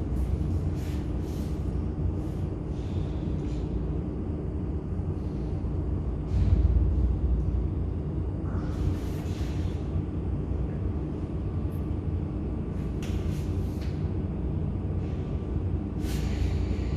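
A steady low machinery hum with a constant tone runs throughout and swells louder for about a second midway. Over it, South American fur seals give short breathy snorts and exhales a few times.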